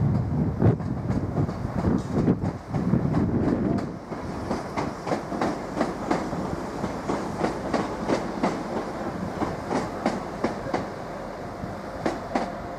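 A train's wheels clattering over rail joints and pointwork as it passes: a heavy rumble for the first few seconds, then the clicks go on more lightly.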